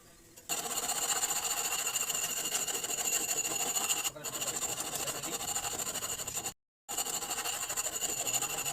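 An electric power tool's motor running steadily at high speed, starting about half a second in, dipping briefly near the middle, cutting out for a moment later on, and stopping near the end.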